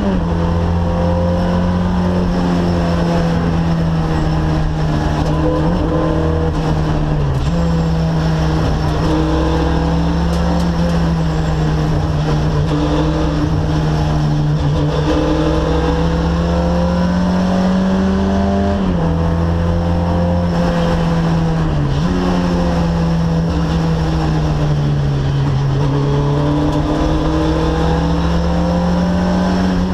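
Rally car engine heard from inside the cockpit at stage pace, its revs climbing and then dropping sharply several times through gear changes, over a steady rush of road and wind noise.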